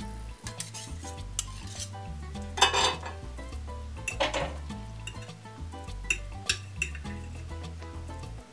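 Knife and fork scraping and clicking on a glass plate while cutting through crispy fried hashbrowns. There are two longer, louder crunching scrapes, about two and a half and four seconds in, over background music with a steady bass line.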